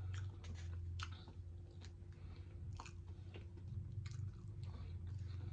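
A person chewing food close to the microphone, with scattered small wet mouth clicks and smacks, over a steady low electrical hum.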